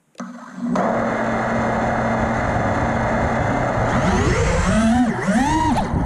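Five-inch FPV quadcopter's four brushless motors (iFlight XING-E 2207 2450Kv) spinning up on the ground after a click, then holding a steady idle whine. About four seconds in, the throttle comes up for takeoff and the whine swoops up and down in pitch with each stick movement.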